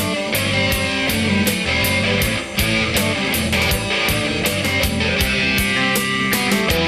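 Rock music with distorted guitars and a driving drum beat.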